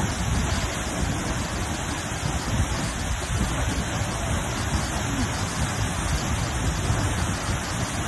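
Seljalandsfoss waterfall pouring down at close range: a steady, deep rushing of falling water and spray.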